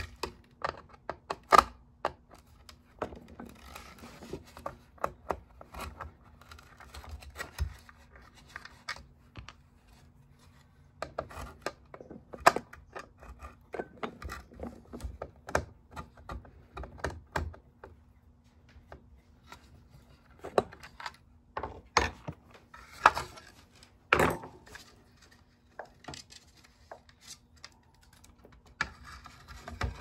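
Irregular clicks, taps and light scrapes of a screwdriver and hands working on a small space heater's plastic housing and power-cord wires, with a few sharper knocks.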